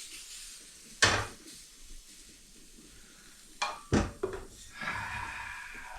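Metal cookware and dishes being handled while making coffee: a sharp clank about a second in, two more knocks close together around four seconds in, the second the loudest, then a steadier ringing sound for the last second or so.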